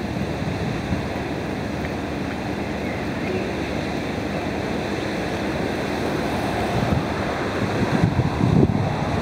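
Wind blowing across the microphone: a steady rushing noise, with gusty buffeting near the end.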